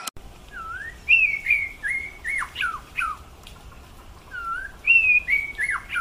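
Grey treepie calling: a phrase of loud, whistled notes that swoop up and down, given twice.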